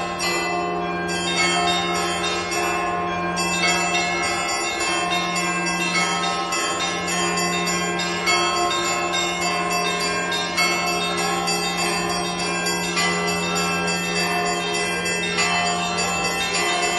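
Russian Orthodox church bells rung in a continuous peal (zvon): a low bell's tone holds steady underneath while smaller bells are struck in a quick, unbroken pattern above it.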